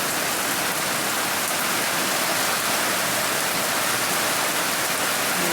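Heavy rain pouring down, a steady even hiss of rain hitting surfaces.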